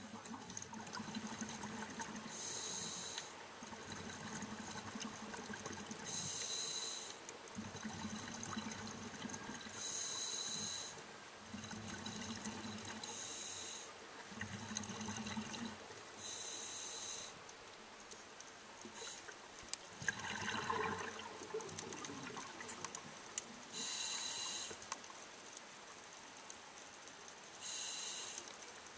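Scuba diver breathing through a regulator, heard underwater: a short hiss with each inhale, then a longer low bubbling rumble of exhaled air, repeating about every three to four seconds.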